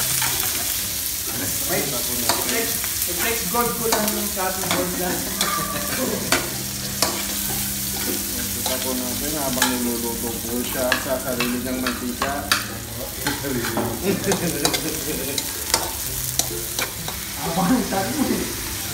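Sliced onions and garlic sizzling in hot oil in a wok, stirred with a spatula that scrapes and taps against the pan many times. Near the end, raw chicken pieces are dropped into the wok.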